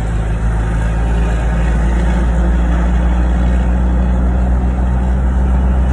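Car engine idling steadily, heard from inside the cabin as an even low hum.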